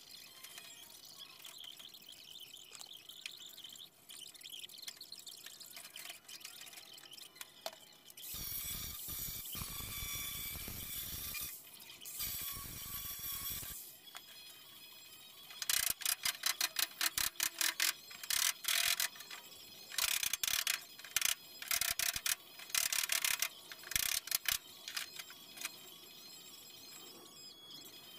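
Cordless angle grinder working on the car's sheet metal: two runs of a few seconds each, then a string of loud, short bursts.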